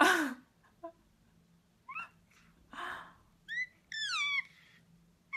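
A baby squealing and cooing. There is a breathy burst at the start, then a few short high calls, and several quick falling squeals about four seconds in.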